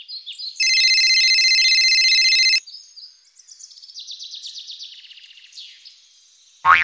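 A mobile phone ringtone: steady high electronic tones pulsing for about two seconds, the loudest thing here. After it, small birds chirp faintly, and a sudden loud sound with a falling pitch cuts in at the very end.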